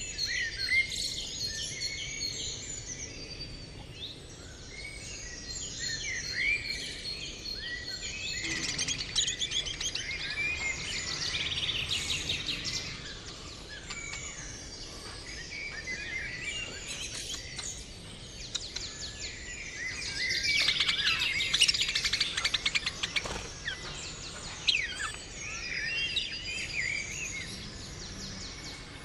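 A group of budgerigars chirping and warbling, many short calls overlapping, with busier chatter about a third of the way in and again past the middle.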